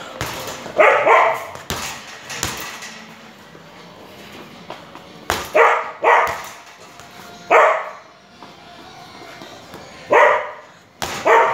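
A dog barking several times in short barks, mostly in pairs a few seconds apart. Duller thuds of gloved punches landing on a hanging heavy bag come in between.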